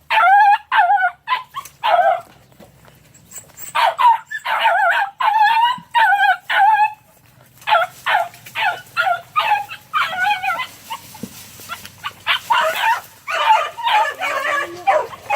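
Three-month-old puppies yelping and baying in runs of quick, high, wavering cries as they follow a rabbit's scent, with short pauses between the runs.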